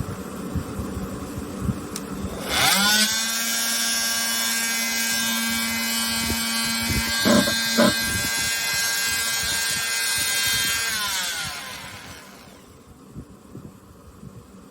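ENERTWIST electric oscillating multitool motor switched on, spinning up to a steady high buzzing whine, running for about eight seconds with two brief louder bursts in the middle, then winding down.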